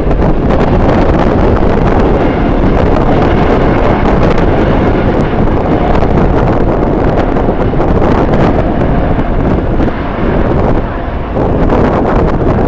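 Strong wind buffeting the camera microphone: a loud, rumbling rush that barely lets up, easing briefly about ten seconds in.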